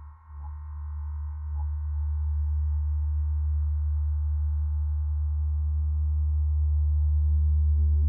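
Deep, steady electronic drone that swells up over the first two seconds and then holds, with faint higher tones above it.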